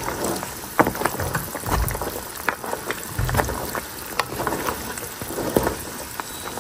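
Beef ribs simmering in their braising liquid in a nonstick skillet on low heat: steady bubbling with many small scattered pops. A wooden spatula stirs through the ribs, with a few soft low bumps from the pan and meat.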